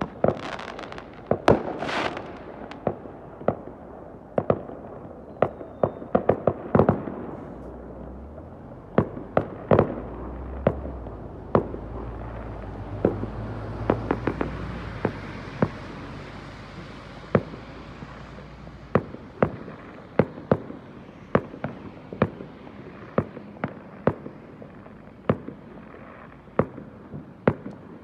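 Fireworks going off in quick succession: many sharp bangs at irregular intervals, several close together, with a stretch of steady hiss and low rumble about halfway through.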